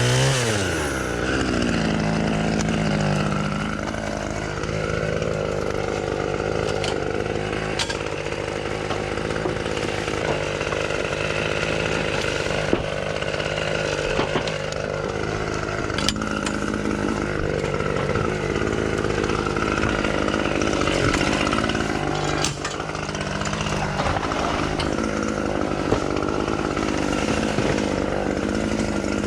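Chainsaw running, its pitch dropping over the first second or so and then holding with a wavering note as it works, with a few sharp ticks.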